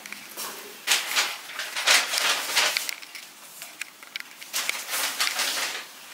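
Rustling close by: irregular bursts of crinkly noise, one group in the first half and another near the end.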